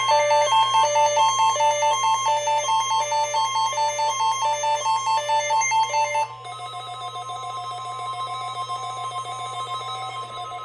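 A repeating electronic melody of beep-like tones stepping between a few pitches. About six seconds in it switches to a quieter, different beeping pattern. A steady low hum runs underneath.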